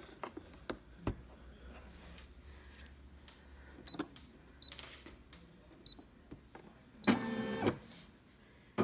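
Computerised embroidery machine: four short high beeps from its touchscreen keys, then about seven seconds in its embroidery arm motor runs briefly, moving the hoop into position.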